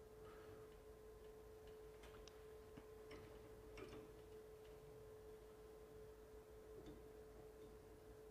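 Near silence: a faint steady hum on a single pitch, with a few faint scattered clicks.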